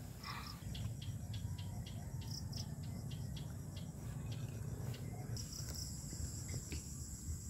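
Crickets and other insects calling in a grassy field at dusk and into the night: a steady high shrill with short chirps repeating about three times a second, giving way a little past halfway to a steadier, higher trill. A low rumble runs underneath.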